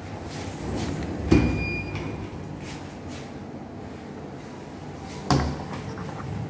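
An access-card reader beeps once as the door lock releases with a knock. About four seconds later the door shuts with a thud.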